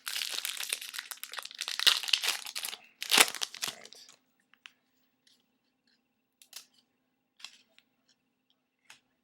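Trading-card pack wrappers being torn open and crinkled for about four seconds, with one louder rip about three seconds in, then only a few faint ticks.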